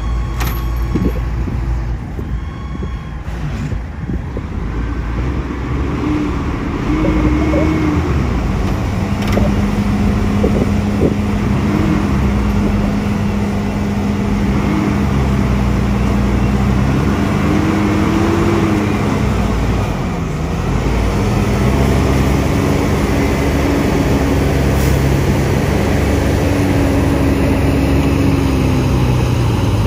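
Heavy diesel engines of a DISD DS300N wheel loader and a loaded dump truck running hard under load as the loader tows the truck out of soft sand where it is stuck. The engine note rises and falls and grows louder about six seconds in.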